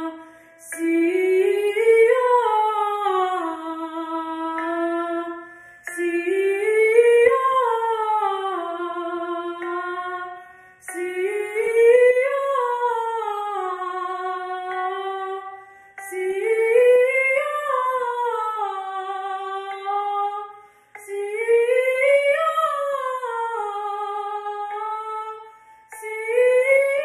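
Solo female voice singing vocal warm-up scales. The same phrase runs up and back down, then settles on a held note, and repeats about every five seconds, each time a half step higher.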